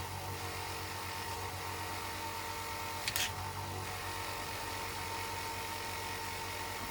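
VEVOR mini bench grinder / buffer polisher's small electric motor running steadily with a low hum and a thin steady whine. A brief click about three seconds in.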